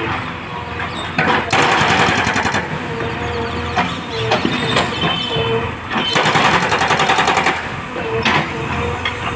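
Hydraulic breaker on a JCB backhoe loader hammering in two bursts of rapid, even blows, each lasting a second or so, with the loader's diesel engine running steadily underneath.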